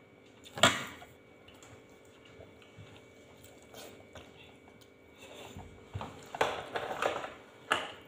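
Quiet mealtime sounds: a sharp clink of a utensil on a dish about half a second in, then a run of chewing, spoon and dish noises over the last few seconds, with a faint steady hum underneath.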